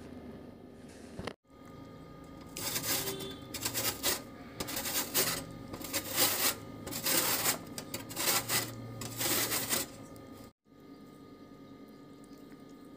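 A peeled potato being grated on a metal grater: a quick run of rasping scrapes, about two a second, that stops suddenly near the end.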